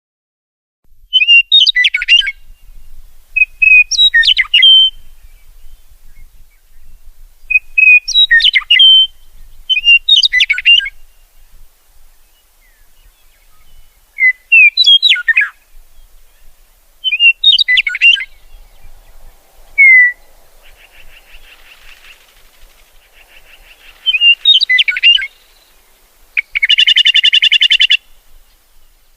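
Songbirds singing: short, quick song phrases repeated every two to three seconds. Near the end comes a harsh, buzzy call.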